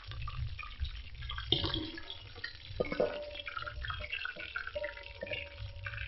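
Chicken pieces deep-frying in hot oil in a large metal pot, sizzling and crackling with scattered pops. A metal spoon knocks against the pot a few times as pieces are lifted out.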